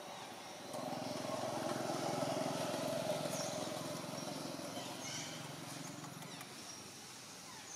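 A vehicle engine passing by off-screen: a steady drone that swells about a second in, holds for a few seconds, then fades away. Faint bird chirps sound above it.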